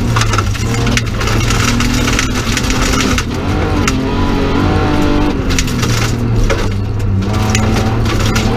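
BMW 325 rally car's straight-six engine revving hard, its pitch climbing and dropping every second or so as the driver lifts and shifts, heard from inside the cabin. Gravel rattles and clatters against the car's underside throughout.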